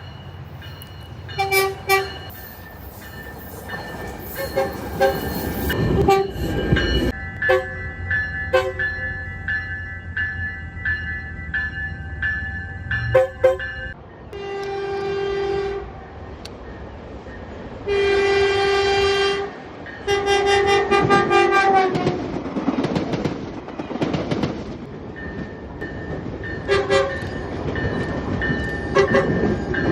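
Tri-Rail commuter train horns sounding over the rumble of a train. Several short toots come first, then three long blasts around the middle, then a few more short toots near the end.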